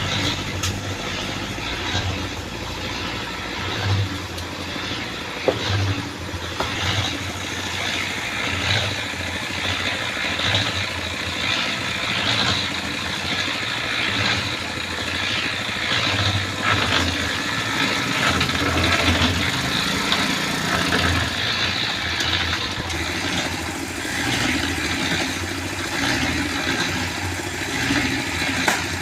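Engine running steadily, with a few scattered knocks and clanks over it.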